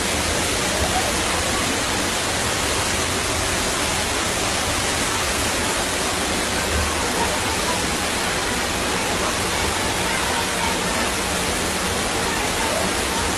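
Fast-flowing floodwater rushing down a street, a steady, loud rush of turbulent water around parked cars.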